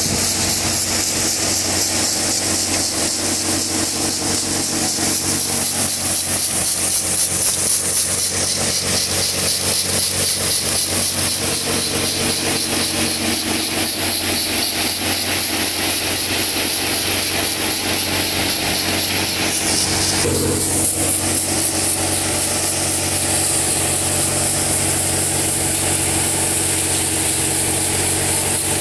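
Tractor engine driving a Bhagta multicrop thresher, running steadily as crop plants are fed in, a continuous hum with a hiss of chaff being blown out.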